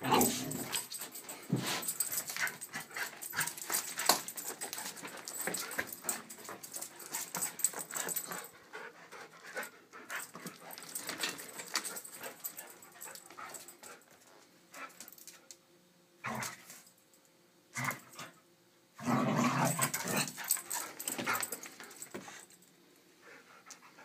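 A dog playing excitedly, making dog sounds and scuffling about in bursts, busiest at first, quieter midway, then loud again near the end.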